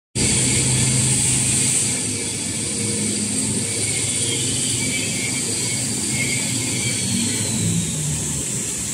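Automatic toilet paper rewinder production line running: a continuous mechanical din with a high hiss over a low hum, a little quieter from about two seconds in.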